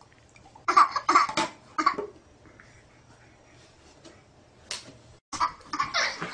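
A baby's short laughing squeals and babble, a few quick bursts about a second in, then quiet; more baby vocalising starts again near the end.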